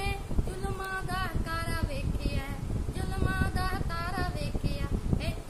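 A teenage boy singing a Punjabi devotional poem solo, his young, high voice carrying a bending melody with held notes.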